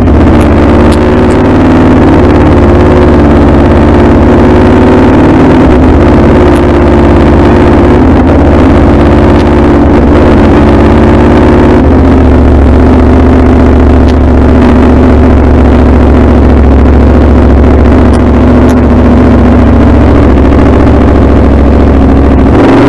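Aprilia Tuono V4 motorcycle's V4 engine running at low, steady revs, with small shifts in pitch about six and twelve seconds in.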